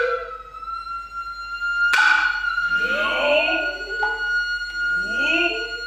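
Noh hayashi music: the nohkan flute holds a long high note while the hand drums strike sharply at the start and about two seconds in. Two rising drummers' calls (kakegoe) sound around two and five seconds in.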